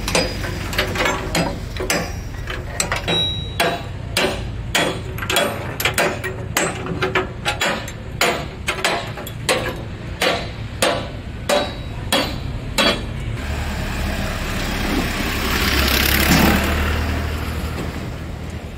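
Hammer blows on the steel of a truck chassis, about two a second, stopping about 13 seconds in. A rush of noise then swells and fades, with an engine idling low underneath throughout.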